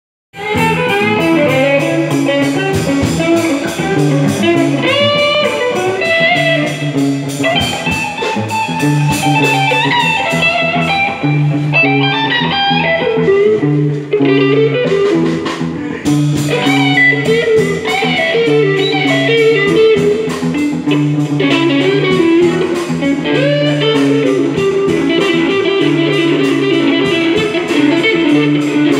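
Live electric guitar music in a bluesy style: a lead guitar plays single-note lines with bent notes over a repeating low accompaniment.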